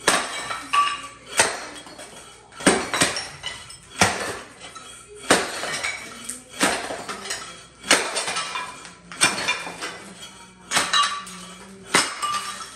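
Sharp clinking strikes of hard objects, about one every second and a bit, each with a brief metallic or ceramic ring.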